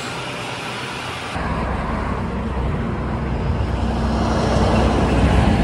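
Brief machinery hiss, then a steady low rumble of road traffic with vehicles going by, swelling slightly near the end.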